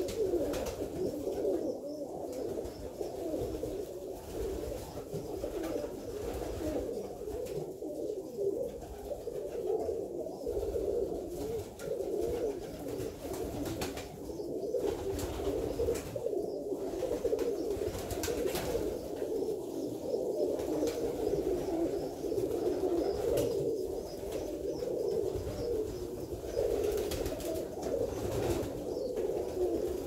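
Alföldi-Körösi tumbler pigeons cooing, many voices overlapping into a continuous chorus.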